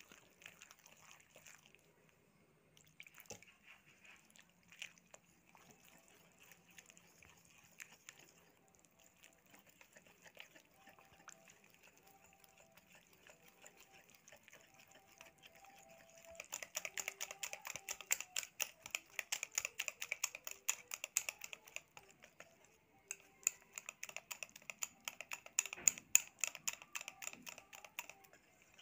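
Wire whisk beating a thick rice-flour and maida batter in a bowl. Soft, irregular wet stirring comes first. From about halfway, the wire clicks rapidly and regularly against the bowl in two fast runs with a short break between.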